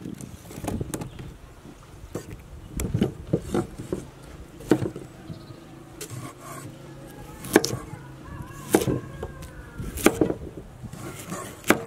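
Carrots being handled and set down on a wooden cutting board, then sliced into rounds with a chef's knife: separate, unevenly spaced crisp knocks of the blade and carrots against the wood.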